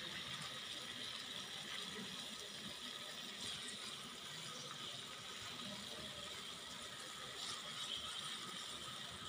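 Water boiling in an aluminium pot on the stove: a faint, steady bubbling hiss.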